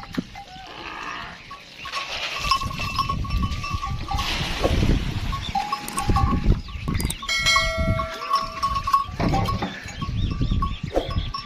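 A herd of dromedary camels drinking at a trough, with a metal bell on one camel's neck clanking on and off over the animals' shuffling and drinking noises. A longer ringing note sounds about two-thirds of the way through.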